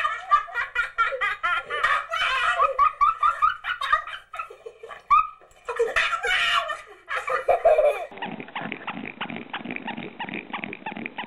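A small dog gives repeated wavering, howl-like vocal cries while a man laughs. About eight seconds in, this gives way to an English bulldog chewing noisily on a toy bone.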